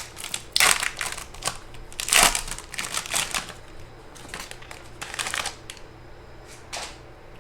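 Plastic-foil trading card pack wrapper crinkling as it is opened and handled, in several short rustling bursts that thin out toward the end.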